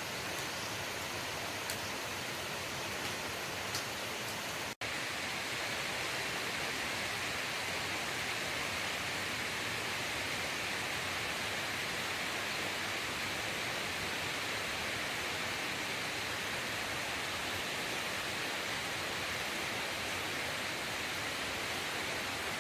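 Steady hiss of rainforest ambience, without distinct calls or events. It drops out for a moment about five seconds in, then carries on slightly brighter.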